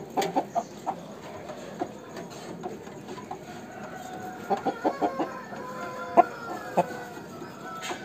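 Aseel rooster clucking in short quick bursts at the start and again about halfway through, with longer drawn-out calls in between. A single sharp click about six seconds in is the loudest sound.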